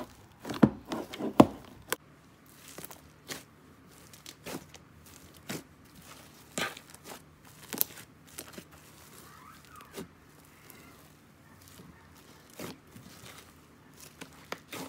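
Hands kneading and pressing a thick, fluffy cream slime mixed with foam beads, giving irregular squishes with sharp pops and crackles; the loudest pops come about a second in.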